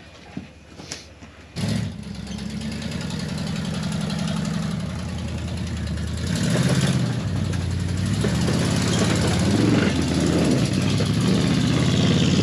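An off-road vehicle's engine comes in suddenly about a second and a half in and runs steadily. About halfway through it gets louder and revs unevenly under throttle, as the vehicle works up the rocky climb.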